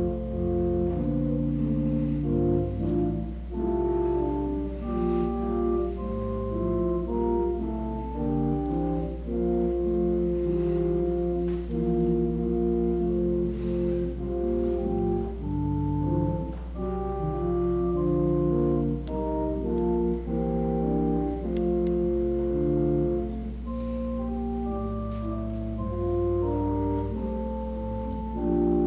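Organ playing a slow, quiet interlude: held chords that change about every second, over a steady low bass note.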